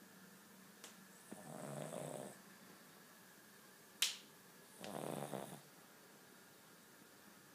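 Cavalier King Charles Spaniel snoring: two snores about three seconds apart, each lasting about a second. A single sharp click, the loudest sound, falls between them.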